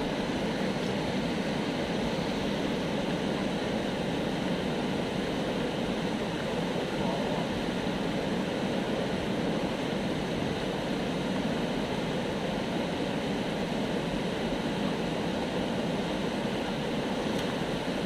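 Steady rushing of water pouring over a concrete dam weir and churning white below it.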